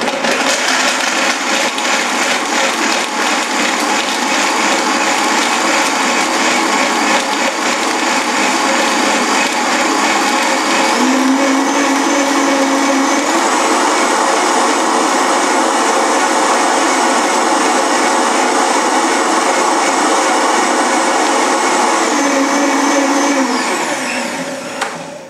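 Countertop blender running on a batch of almond milk with pitted medjool dates and vanilla. The motor runs steadily, steps up in pitch about eleven seconds in and back down near the end, then winds down and stops.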